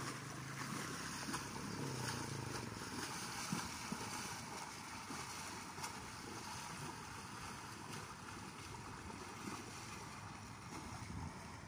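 A horse and a person wading through a shallow river, splashing steadily through the water, growing a little fainter as they move away.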